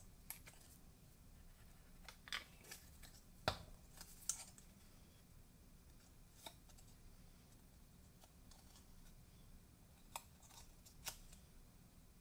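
Faint, scattered crinkles and light taps of white cardstock being handled and pressed together by hand while a scored box piece is folded and glued, the sharpest tap about three and a half seconds in.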